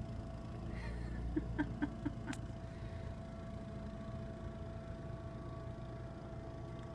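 Case Ingersoll 224 garden tractor and its front snowblower running steadily, a low even rumble heard muffled through window glass. About a second and a half in comes a brief run of five short quick calls, ending with a sharp click.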